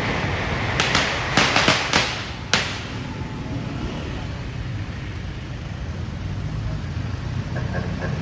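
A quick string of sharp firecracker cracks, about seven within two seconds, starting about a second in, over the steady low hum of slow-moving street traffic.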